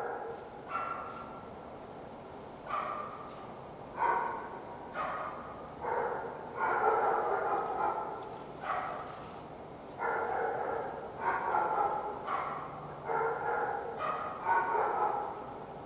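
Wild coyote giving a series of short, barking yelps, roughly one a second, with a couple of longer drawn-out calls in the middle.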